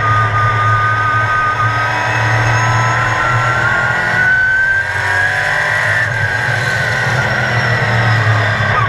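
A sportsman race car's engine running at racing speed, heard from inside the cockpit. Its pitch sways slowly through the laps, and its low end drops out briefly about halfway through.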